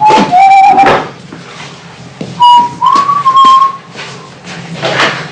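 A person whistling a few short phrases of a tune: held notes that step up and down, with a pause of about a second and a half between phrases.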